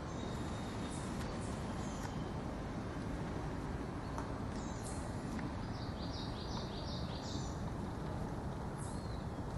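Small birds chirping and calling, with a quick run of about six repeated notes a little past halfway, over a steady low background rumble.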